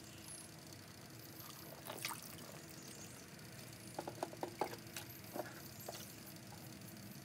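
Pond water trickling and sloshing as a plastic submersible filter box and pump are handled and set into the water, with a cluster of sharp plastic clicks and knocks about four to six seconds in.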